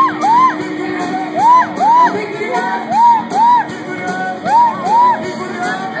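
Live band playing loudly, with a voice shouting over it in pairs of short rising-and-falling whoops, a pair about every one and a half seconds.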